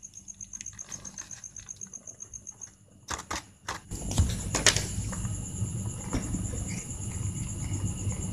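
Stray cats eating fish scraps off concrete, with soft chewing, crunching and rustling from about four seconds in. A few sharp clicks come just before and around then. Crickets chirp in a fast, steady high pulse throughout.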